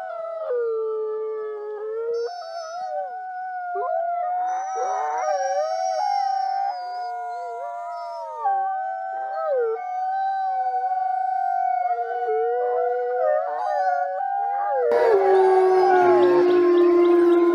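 Two wolves howling together in long, overlapping howls that slide up and down in pitch. About 15 seconds in, the sound cuts to a louder, lower-pitched chorus of howls.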